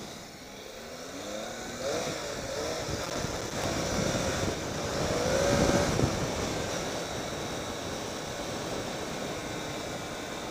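Triumph Tiger 800 XCx's three-cylinder engine accelerating, its revs climbing twice, with the loudest point about six seconds in, then settling into steady running under a rush of wind.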